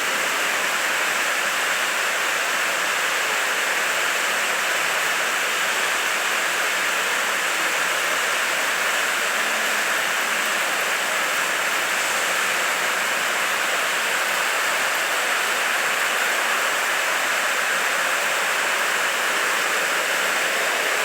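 Steady, even hiss-like noise with no rhythm, distinct tones or breaks.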